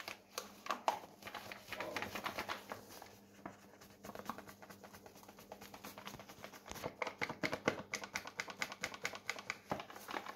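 Paper bag of whole-grain rye flour crinkling and rustling as flour is shaken out of it into a plastic scale bowl: a quick run of small crackles and taps, busiest in the second half.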